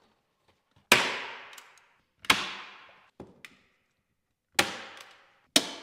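A staple gun fires four times, fixing an external corner bead to plasterboard. Each shot is a sharp crack with a short ringing tail, coming one to two seconds apart, with a few small clicks between.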